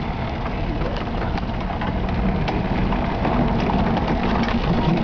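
Steady wind noise and rumble on a microphone riding along on a moving pedal trike, with scattered small clicks and knocks.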